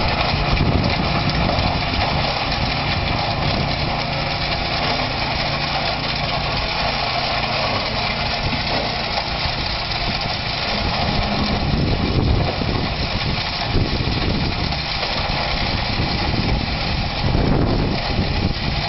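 Wood chipper running steadily as conifer branches are fed into it, with a few brief surges in level.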